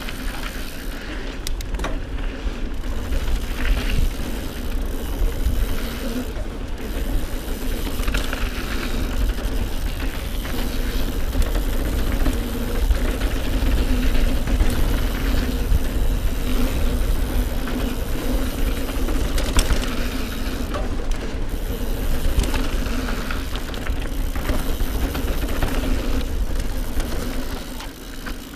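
Mountain bike riding fast along a dirt singletrack: knobbly tyres rolling over the dirt and wind rumbling on the handlebar camera's microphone, with a few sharp rattles from the bike. It gets quieter near the end.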